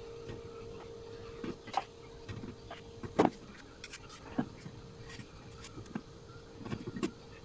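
Light, scattered knocks and taps of a kitchen utensil against a bowl or cake while cream is spread on a syrup-soaked sponge layer, about five in all, the loudest about three seconds in. A steady faint hum runs underneath.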